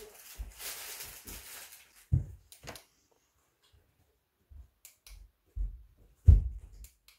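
Handling noise from a small plastic solar lantern being turned over in the hands: a soft rustle over the first two seconds, then scattered knocks and taps, the loudest about six seconds in.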